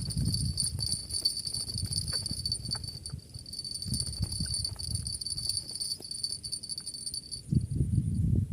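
An insect trilling: a high, finely pulsing tone held steadily, stopping about seven seconds in, over low rumbling noise.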